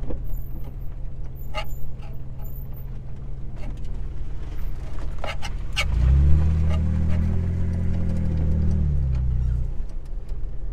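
Jeep Wrangler engine heard from inside the cab, running steadily as it crawls over a rough mud track, then revving harder under load for about three seconds past the middle before easing off. A few sharp knocks and rattles come in along the way.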